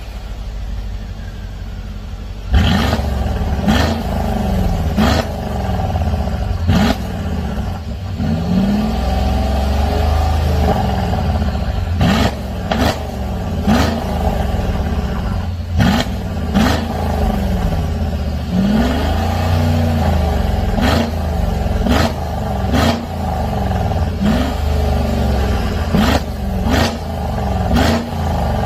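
Mercedes-Benz GLS500 twin-turbo V8 exhaust, through an aftermarket cat-back valved system with a sport resonator and the exhaust valves open. It idles for a couple of seconds, then is revved in quick free-rev blips about a dozen times, each rise in pitch starting sharply.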